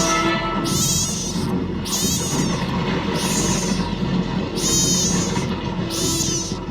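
An animal's short, high-pitched calls, repeated about once a second (six in all), over a steady background noise.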